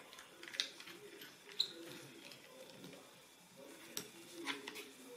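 Faint, scattered clicks and light taps as a small screwdriver and the plastic laptop screen bezel are handled, a few separate ticks a second or more apart.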